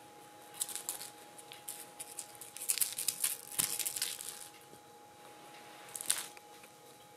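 A kitten's paws and claws scratching and rustling on a fabric cover as it rolls about wrestling a dangled toy, in scratchy bursts: a cluster in the middle and a short one near the end. A faint steady hum runs underneath.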